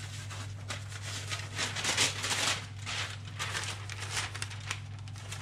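Newspaper sheet rustling and crinkling as it is handled and unfolded, louder for a moment about two seconds in, over a steady low hum.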